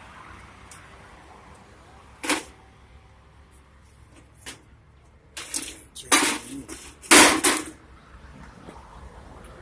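Short bursts of arc welding on a steel-drum jerk pan: about five tack welds, the last three longest and loudest.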